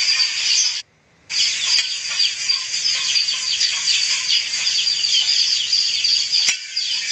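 Dense chirping of many small birds over a steady high-pitched buzz, cutting out for a moment about a second in, with a single sharp click near the end.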